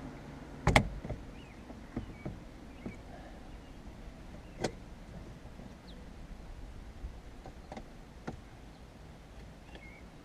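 A sharp click, then several lighter clicks and knocks: a steering-wheel airbag module being snapped into its clips in the wheel, with hands handling the parts.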